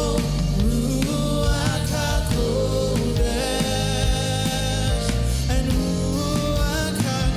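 Live gospel worship music: a band with keyboard and bass playing under sustained singing.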